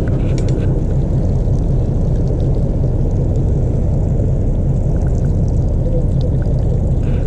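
Fishing boat's engine running steadily, a loud, even low drone.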